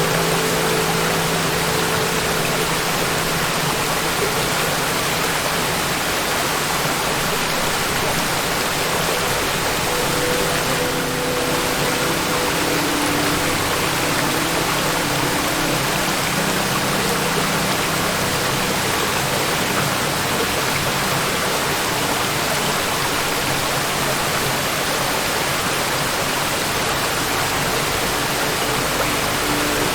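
Waterfall: water falling and splashing in a steady, even rush that does not let up.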